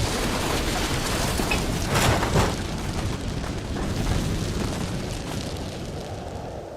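Airliner crash on landing after a gear collapse: a sudden loud rumbling roar of impact and breaking up that cuts in at once, swells again about two seconds in, then slowly fades.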